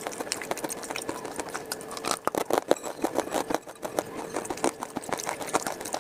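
Close-miked ASMR eating sounds: rapid crisp clicks and crunches from chewing baked clay and from fingers working a sticky paste. They are busiest a little past the middle. A faint steady hum runs underneath.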